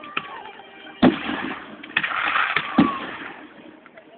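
Display fireworks going off: three loud bangs about a second apart, each followed by a crackling spray.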